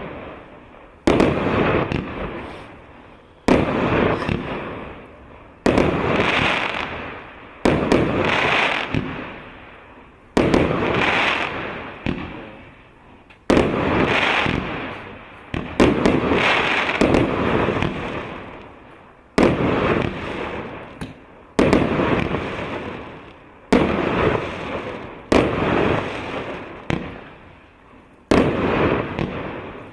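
Multi-shot consumer firework battery (Р8598 "Happy New Year" cake) firing in sequence, a sharp bang about every two seconds, each dying away over a second or two.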